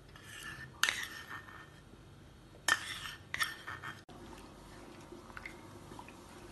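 A small steel bowl clinking sharply against a stainless-steel pot several times as condensed milk is emptied from it into the milk, in the first three and a half seconds, then a wooden spoon stirring quietly in the pot.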